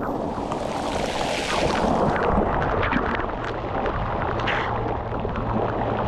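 Water pouring down from a pool shower onto a person and the pool surface: steady rushing splash with many sharp spatters of drops hitting close by, heavier from about two seconds in.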